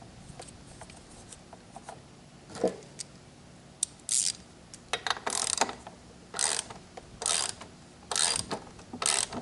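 Socket ratchet clicking in short runs, about one a second from about four seconds in, as a lawn mower's front-wheel bolt is tightened down.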